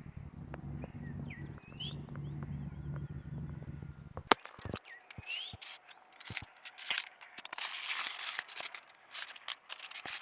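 Crackling and rustling of crop leaves and stalks being brushed and trampled, with a few short bird chirps. A low steady hum in the first four seconds cuts off with a sharp click.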